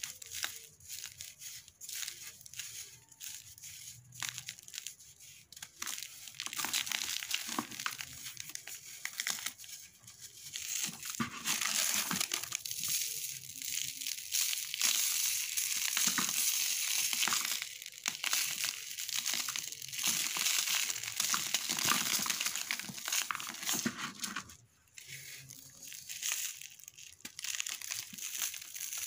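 A dry sand-and-cement ball rubbed and crushed by hand, crumbling with gritty scraping as crumbs and powder fall into the tub. Separate sharp crackles come first, then near-continuous gritty crumbling from about seven seconds in, with a short pause near the end.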